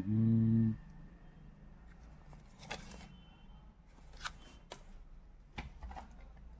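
A man's humming breaks off in the first second. Then come faint rustles and a few sharp plastic clicks as cellophane-sealed audio cassettes are handled.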